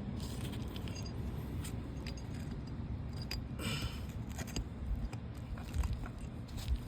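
Hand work with loose nails and a hammer: scattered light metallic clinks and scrapes, with two dull knocks near the end.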